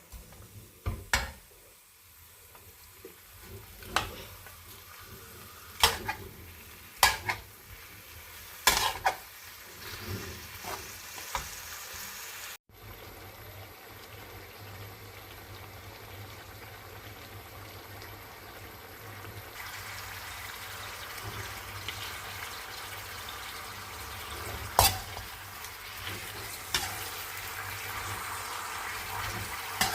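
Chicken pieces frying in hot mustard oil in a pan, a steady sizzle that gets louder in the second half, with a spatula knocking and scraping against the pan now and then as the pieces are stirred and roasted.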